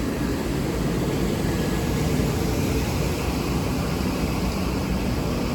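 Steady road and engine noise inside a moving vehicle's cabin.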